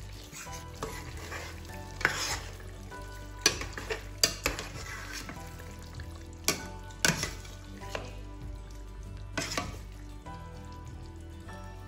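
A spoon stirring chicken simmering in a thick sauce in a stainless steel pot, the sauce bubbling and sizzling, with several sharp knocks of the spoon against the pot.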